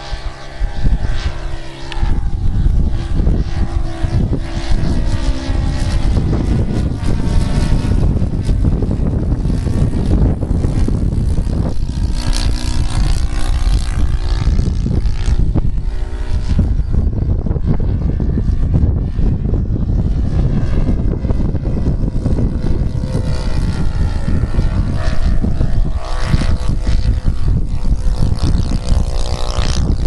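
SC 120 four-stroke glow engine of a radio-controlled Hawker Sea Fury model in flight, its propeller drone steady in level. Its pitch rises and falls as the plane passes and turns, most clearly near the middle and again near the end.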